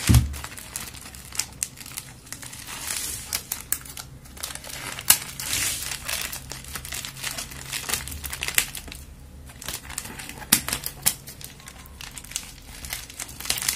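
Plastic courier mailer bag crinkling and rustling as it is handled and cut open with scissors, with scattered sharp crackles and snips.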